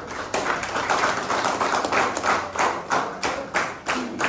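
A small crowd clapping, settling into a steady rhythm of about three claps a second.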